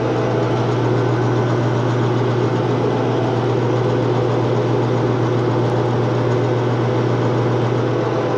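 Metal lathe running with its spindle turning a hardened steel axle in the chuck: a steady low drone from the motor and gearing. The tool is being backed away from the work, so nothing is being cut.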